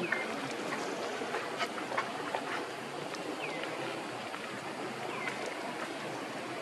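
Steady outdoor background noise with a few faint, short, high-pitched falling chirps and scattered light clicks.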